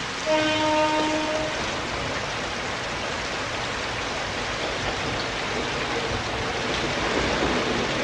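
Steady rain with a single horn blast of a bit over a second near the start, then an approaching train growing louder toward the end.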